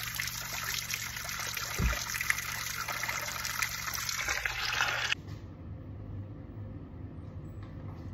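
Spring water trickling and splattering as it runs off a rock, with a brief low thump about two seconds in. About five seconds in the water sound cuts off suddenly, leaving a quieter steady room hum.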